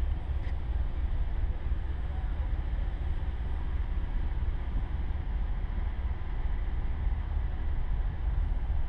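Steady low rumble and hiss of a ship underway through open water among ice floes, with wind buffeting the microphone.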